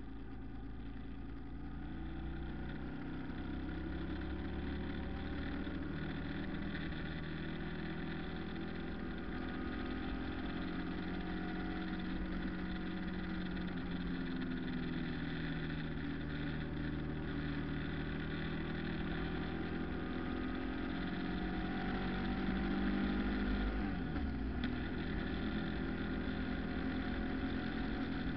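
Vehicle engine running while driving, its pitch slowly rising and falling with speed, over a steady rushing noise. Near the end the engine pitch drops sharply and climbs back.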